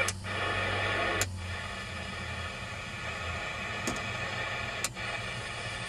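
Midland 5001Z CB radio's speaker hissing with static between stations as the channel knob is turned, with four sharp clicks along the way.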